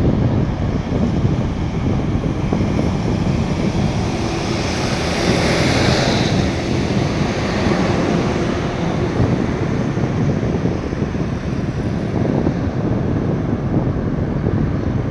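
Airbus A330 airliner's twin jet engines at takeoff power as it rolls and lifts off, a steady loud rumble whose higher hiss swells to a peak about six seconds in and then eases as the jet climbs away. Wind buffets the microphone throughout.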